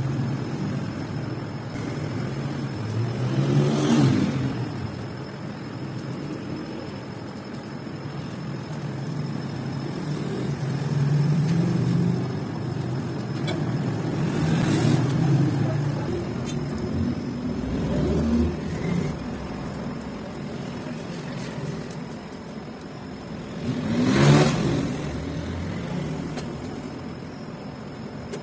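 Motor vehicles passing on a road, engines running steadily: three pass by, each swelling and fading, about four seconds in, midway and near the end, the last one the loudest.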